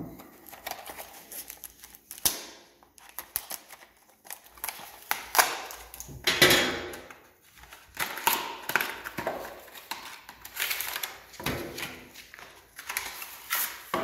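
Cardboard box and plastic blister pack of a garage door remote being handled and opened by hand: irregular rustling and crinkling with sharp clicks and taps, loudest about halfway through.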